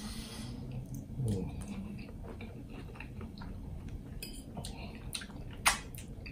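Close-miked eating sounds: wet chewing, lip smacks and finger sucking over shrimp Alfredo, a scatter of short clicks with one sharp, louder smack near the end.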